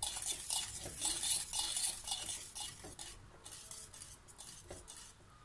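Wire whisk stirring thick milk pudding in a stainless steel pot, scraping and clinking against the metal in quick strokes. The strokes thin out and grow fainter after about three seconds.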